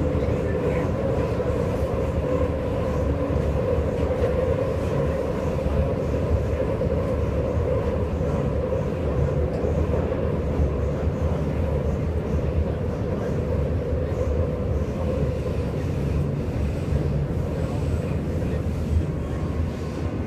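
Berlin U-Bahn train running at speed, heard from inside the passenger car: a steady rumble of wheels on rail with a faint steady whine.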